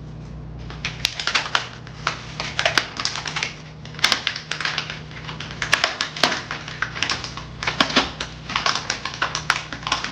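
Kitchen knife clicking and tapping irregularly against a cutting board, several strokes a second, while salmon is skinned and cut up.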